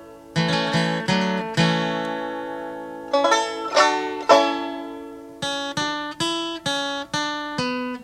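Background music on plucked strings: single notes and short groups of notes, each ringing and then fading. From about the middle on, the notes fall at an even pace of roughly two a second.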